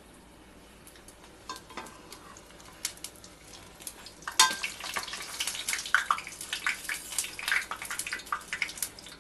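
Rice poori deep-frying in hot oil, sizzling and crackling, with a metal slotted spoon scraping and tapping in the pot as the poori is moved around. Only a few faint clicks at first; the crackling turns much louder about four and a half seconds in.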